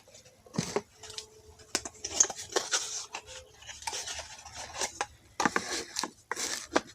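Handling noises from unpacking a small cordless tool kit: repeated rustling, scraping and light clattering of packaging and small plastic parts in irregular bursts.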